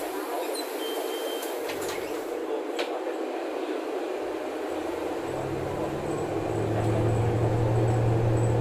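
Bonluck JXK6120L-NGV-01 city bus's natural-gas engine heard from inside the cabin over steady cabin noise. Its low drone comes in about two seconds in and grows louder toward the end as the bus picks up speed. Two clicks come about two and three seconds in.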